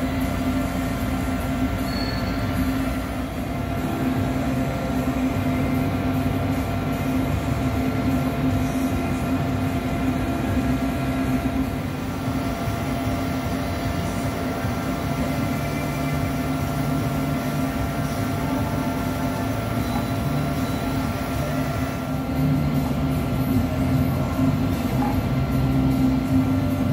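1976 German-made horizontal boring mill running, its spindle turning a boring bar: a steady motor and gearbox hum with several constant whining tones over a low rumble, growing a little louder near the end.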